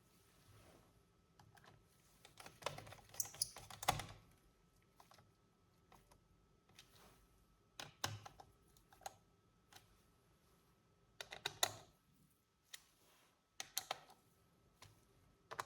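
Irregular small clicks, taps and rattles of plastic and metal laptop parts being handled, in scattered clusters with the busiest bursts about three seconds in and again about eleven seconds in.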